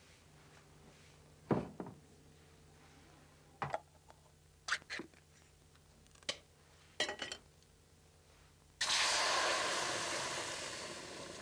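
A few short metallic clicks and knocks as a food can is handled and opened. About nine seconds in, canned stew poured into a hot pot on an electric hob starts sizzling suddenly and loudly, then slowly dies down.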